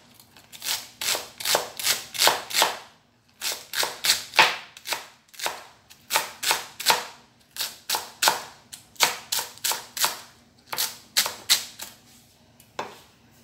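Chinese cleaver chopping a bunch of flowering chive stalks on a cutting board: sharp knocks about two to three a second, in runs broken by short pauses, stopping shortly before the end.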